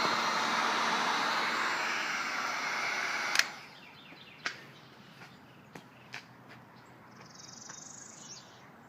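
Wagner Furno 300 heat gun blowing a steady hiss of hot air, then switched off with a click about a third of the way in; after that only a few faint ticks remain.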